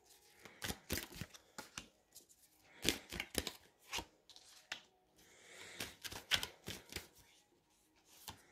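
Tarot cards being handled and dealt onto a cloth-covered table. There is a quick, irregular run of crisp card snaps and taps, with a short rustle of cards sliding a little after the middle.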